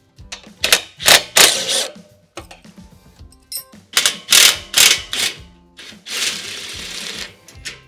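DeWalt cordless impact driver with a socket extension running in several short bursts, backing bolts out of a steel shipping crate. Background music plays underneath.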